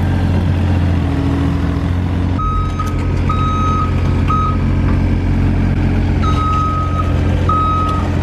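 Mini excavator's engine running steadily, and from about two and a half seconds in its travel alarm sounds in a run of uneven high beeps as it tracks over the paving.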